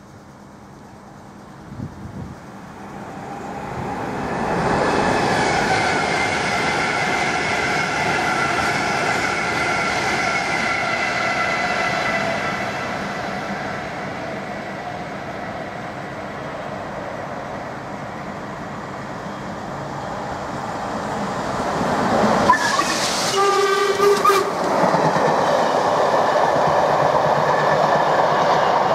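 Double-headed LMS Stanier Black Five 4-6-0 steam locomotives passing with their train: the noise of the engines and rolling stock builds about four seconds in and holds steady. A short whistle blast sounds a little after twenty seconds in, followed by the coaches rolling by.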